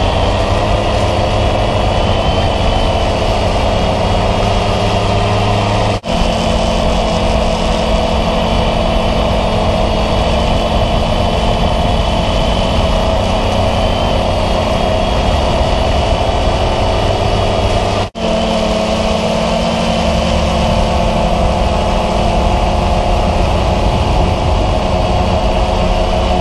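DJI Phantom 2 quadcopter's four motors and propellers running in flight, heard from the camera on board: a loud, steady hum with a whine on top. The sound drops out for an instant twice, about 6 and 18 seconds in, and its pitch shifts slightly after each drop.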